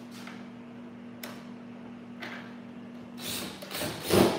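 Small foosball-table parts being handled during assembly: a few light clicks about a second apart, then a louder rustling clatter near the end, over a steady low hum.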